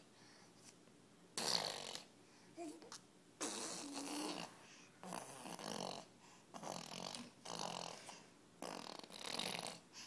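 A toddler blowing breathy raspberries through the lips, fingers at the mouth, in about six puffs of half a second to a second each.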